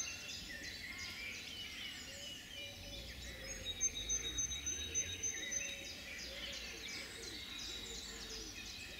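Faint birdsong from several birds: scattered high chirps throughout, with a thin, steady, high whistled note held for about two seconds near the middle.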